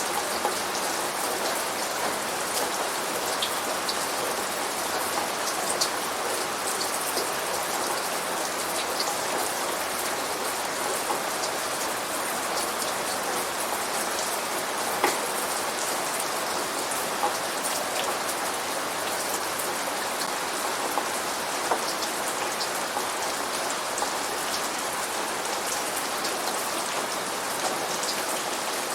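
Steady rain falling on a hard surface: an even hiss with many small drop ticks scattered through it, one a little louder about halfway through.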